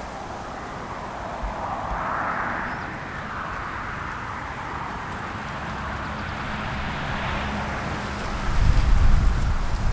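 Outdoor background noise, a steady hiss with no clear birdsong, with a low rumble of wind buffeting the microphone about a second before the end.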